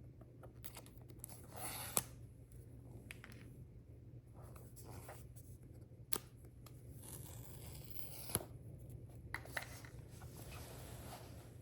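Product packaging handled up close: rustling, scraping and tearing of paper and cardboard, with sharp clicks about two, six and eight seconds in, over a low steady hum.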